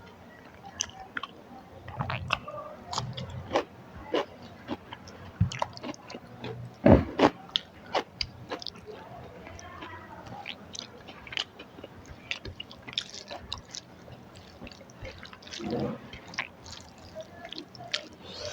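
Close-miked chewing and mouth sounds of a person eating a rice-and-curry meal, with many short, sharp clicks and a louder knock about seven seconds in.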